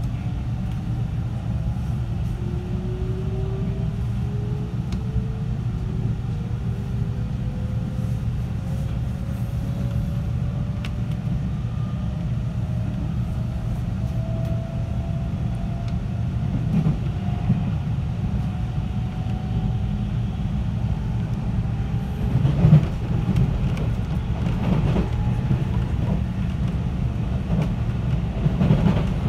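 JR 313 series electric train running on the line: a steady low rumble of wheels on rail, with the traction motors' whine climbing slowly in pitch through the first half as the train gathers speed. A few sharp clacks come in the second half.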